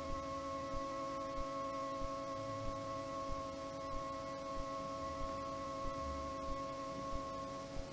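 A soft sustained orchestral note held steadily, one unchanging pitched tone with its overtones.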